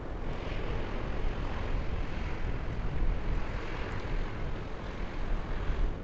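Wind rushing over the microphone with the steady wash of water from passing harbour boats.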